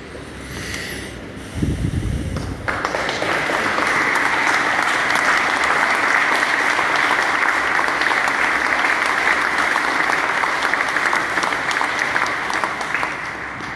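Church congregation applauding: it starts about two and a half seconds in, holds steady and dense, and tails off near the end. A brief low thump comes just before it.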